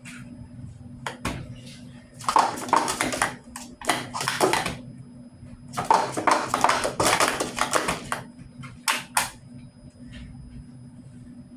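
Packaging being opened by hand: two long bursts of rustling and tearing, then two sharp clicks near the end, over a steady low hum.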